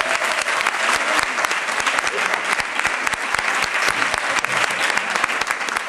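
Audience applauding: dense, steady clapping from the spectators.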